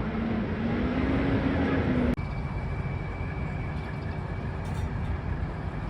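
Street traffic noise: a vehicle engine whose tone rises in pitch and then stops abruptly about two seconds in, followed by steadier traffic rumble with a faint high whine.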